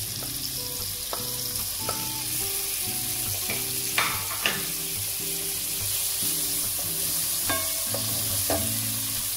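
Diced tomatoes sizzling steadily in hot olive oil and garlic in a frying pan, with a wooden spoon stirring them; a couple of sharp clicks about four seconds in.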